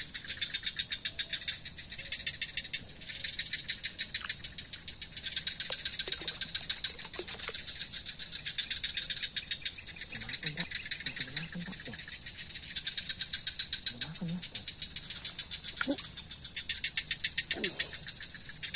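Night insects chirping in rapid pulsed trills that come in runs of a second or two and keep repeating, over a steady high-pitched background chorus.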